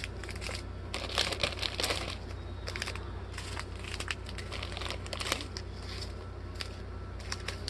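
Small plastic bags of diamond-painting drills crinkling and rustling as they are handled and sorted, in irregular bursts that are densest about a second in, with scattered light clicks.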